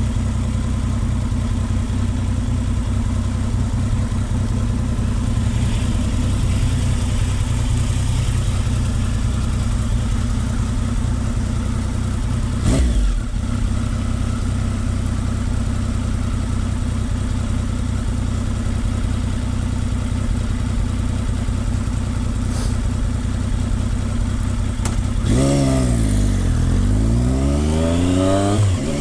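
Triumph Speed Triple 955i's three-cylinder engine running at a steady idle after a restart, with a single sharp knock about halfway through. Near the end the engine pitch sweeps down and back up.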